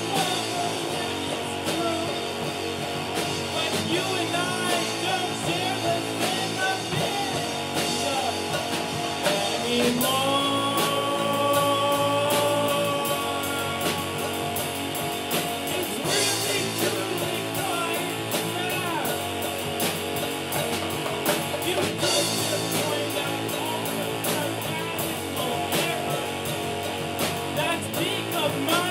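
Live rock band playing a song: electric guitar, bass, keyboards and drum kit under a sung lead melody. About ten seconds in, one long note is held for several seconds.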